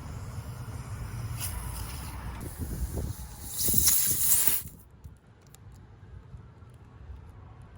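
A loud hiss of air escaping from a punctured tire as the plug tool works in the hole, lasting about a second and cutting off suddenly about halfway through, over a low rumble.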